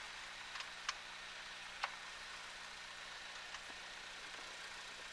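Grumman light aircraft's piston engine running steadily at low taxi power, heard faintly, with a few sharp clicks in the first two seconds, the loudest just under two seconds in.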